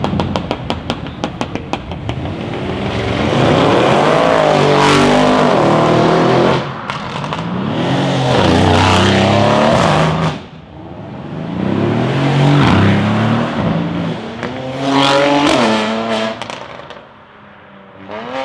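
Audi RS7's twin-turbo V8 through a decat Milltek straight-pipe exhaust, popping and crackling rapidly at first, then revving hard four times, each run climbing in pitch and dropping back. The last run fades near the end.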